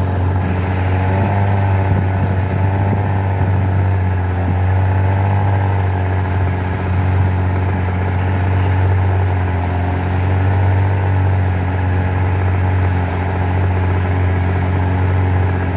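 Boat's outboard motor running steadily at cruising speed, a constant low engine hum that holds the same pitch throughout.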